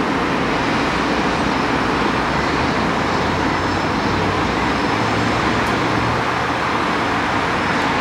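Embraer 190 airliner's twin turbofan engines at takeoff thrust as it lifts off and climbs out: a loud, steady jet roar.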